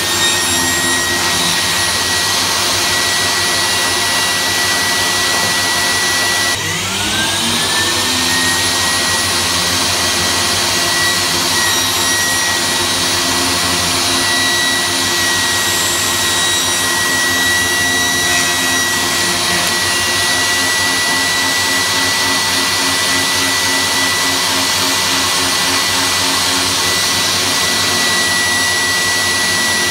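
Table saw motor running with a steady high whine. About six and a half seconds in its pitch drops sharply and then winds back up to full speed.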